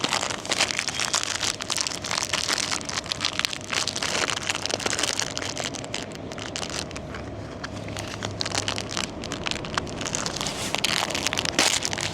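Plastic packaging crinkling and crackling in the hands as a small bag of gum is opened and handled.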